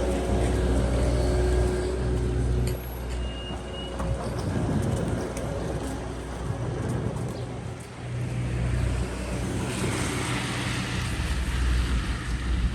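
Road traffic noise: a low vehicle rumble that swells and eases several times, with a broad rush of hiss rising about ten seconds in.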